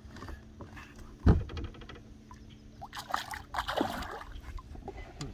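A low thump against the boat about a second in, then a splash and water sloshing as a bass is released over the side back into the lake.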